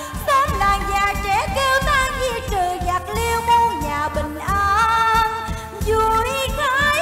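A woman singing a sustained, ornamented vocal line that glides up and down in pitch, over cải lương (Vietnamese reformed opera) band accompaniment.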